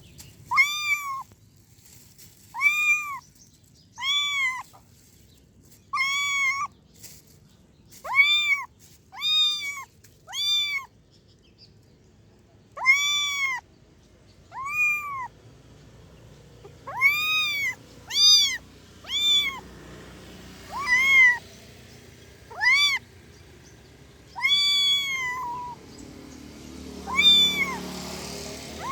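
A kitten meowing over and over. The meows are short and high-pitched, each rising and then falling, coming about once a second, with a short pause about halfway through.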